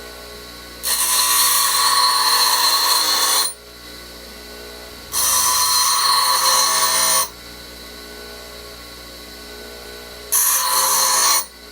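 A power tool running steadily, with metal pressed against it three times for a grinding and sanding sound that lasts a few seconds each time: the steel buckle being cleaned up and finished.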